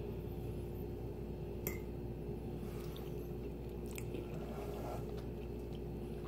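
A person chewing a mouthful of baked cabbage, soft and quiet, with a couple of faint clicks, over a steady low hum.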